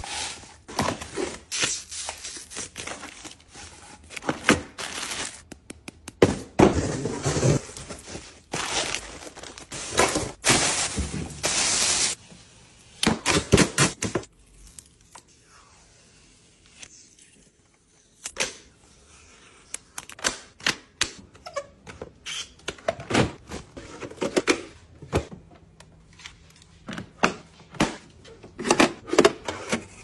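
Unpacking noises: cardboard and plastic wrapping rustling and tearing, then plastic vacuum parts clicking and knocking as they are handled and snapped into place, with a quieter spell about halfway through.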